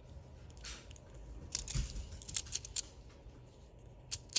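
Gao Studio Rice Ball PEI fidget slider being slid between its magnetic positions: several sharp, irregularly spaced clicks as the plates snap into place, held by newly fitted stronger magnets.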